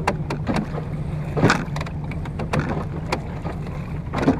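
Water slapping and splashing against the wooden hull of a Venetian rowing boat under way, with short sharp knocks now and then, the strongest about a second and a half in, over a steady low hum.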